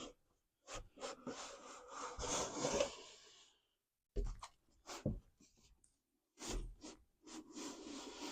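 Door window glass of a 2009 Smart car being worked into place in the door: a rubbing, scraping noise as the pane slides in its channels, broken by a few sharp knocks, then more rubbing near the end.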